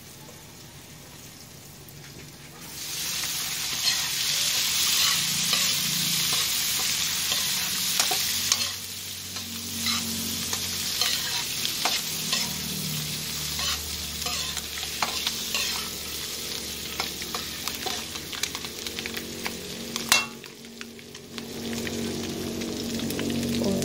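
Quail eggs stir-frying in hot oil in a wok: a steady sizzle, with a metal spatula scraping and clicking against the pan. The sizzle jumps louder about three seconds in. A sharp knock comes near the end, and after it the sizzle is briefly quieter.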